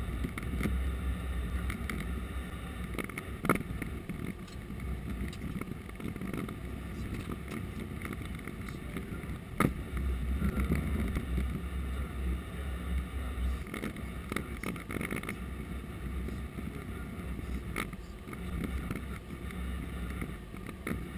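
Cockpit noise of an Airbus A330-200 taxiing: a steady low rumble from the running engines and the rolling aircraft, with a few sharp knocks along the way, the loudest about three and a half and ten seconds in.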